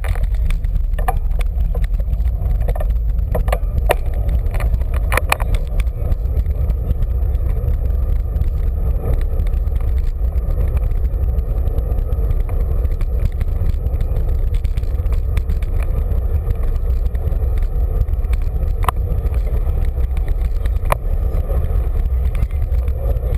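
Wind and road noise on a bicycle-mounted camera while riding a road bike: a steady, heavy low rumble, with a few sharp clicks and rattles from the bike and mount over the road surface.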